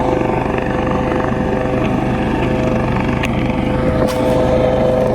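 Coast Guard rescue helicopter hovering, its rotor beating fast and steadily under a steady engine hum; it is loud. A single sharp knock about four seconds in.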